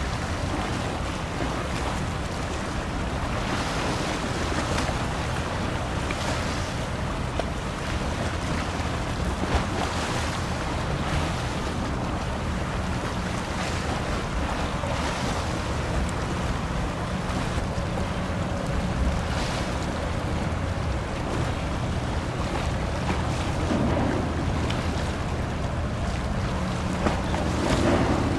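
Low, steady drone of a passing general cargo ship's diesel engine, with water rushing along the hull and gusts of wind on the microphone.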